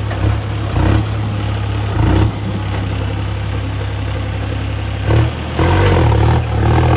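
Tractor diesel engine running steadily at idle, blipped briefly about a second and two seconds in, then revved higher and held for the last two seconds.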